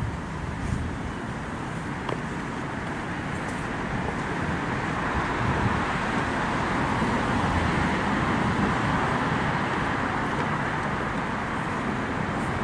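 Road traffic noise: a steady rush of passing vehicles and tyres that swells over several seconds and then eases a little.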